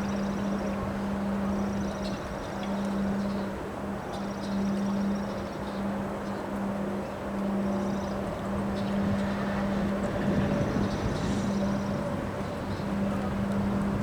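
Gusty wind blowing, its rumble rising and easing every few seconds, over a steady low hum and faint high-pitched chirps.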